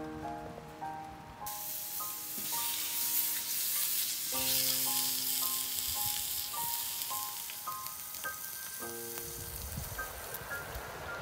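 Chunks of raw fat sizzling in a large, shallow metal pan over a fire as they begin to render. The sizzle starts suddenly about a second and a half in. A gentle melody of background music plays over it.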